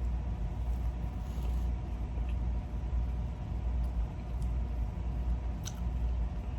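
Steady low rumble with a faint even hum over it and a few soft clicks scattered through.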